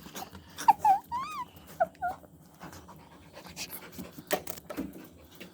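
An animal giving a few short, high whining calls that rise and fall, mostly in the first two seconds, amid faint scattered clicks and knocks.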